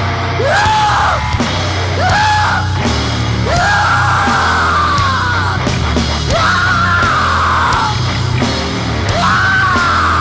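Grindcore/noise track: harsh yelled vocals over dense distorted guitar and bass. The vocals come as a run of drawn-out yells, each about one to two seconds long, rising and then falling away.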